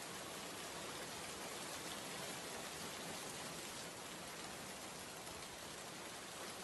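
Heavy rain falling steadily on a wet surface: a dense, even hiss of many drops.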